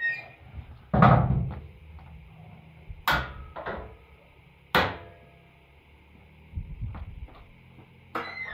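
Metal cargo-bed tailgate of a Kuba E electric pickup being swung up and latched shut: a string of sharp metal clanks, the loudest about a second in, with further knocks near three and five seconds and again near the end.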